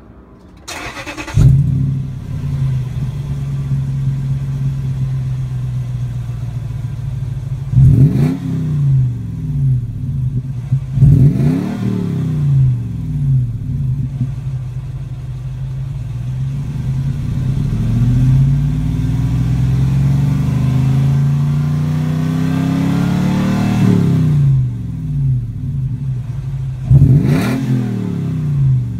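Toyota 4Runner's 4.7-litre V8 through an aftermarket dual-tip exhaust. It starts about a second in and settles to a steady idle. It is then revved in three quick blips, next in one long rev that climbs slowly and drops back, and once more near the end.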